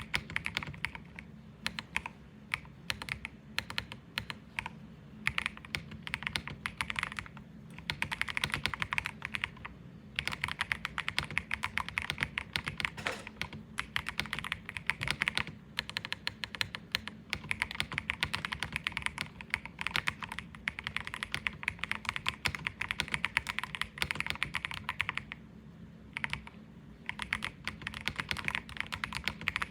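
Fast, continuous typing on an Akko 5075B mechanical keyboard with Akko Creamy Blue Pro V5 switches and Santorini keycaps: a dense run of key clacks with a few brief pauses, the longest about 25 seconds in.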